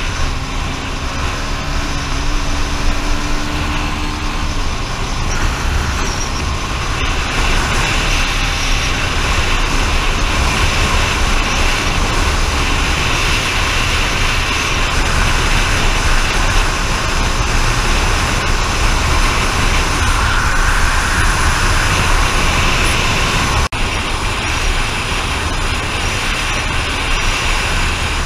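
A vehicle on the move: a steady, loud rumble and rush of road and wind noise, with a faint engine tone in the first few seconds.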